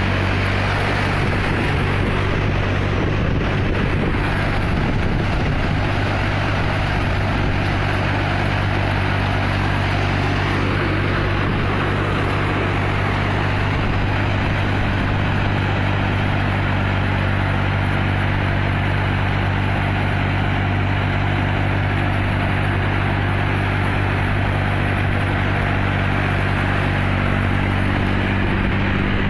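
Force Ox 25 tractor's 27 hp diesel engine running steadily, driving a belt-driven mini harvester, with the even rush of the harvester's machinery over the engine's hum.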